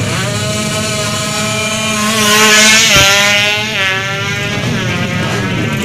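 Drag-race motorcycle engines launching and accelerating hard, the pitch climbing through the revs, loudest as they pass close about two to three seconds in, with a sharp crack, then dropping in pitch and fading as they run away down the strip.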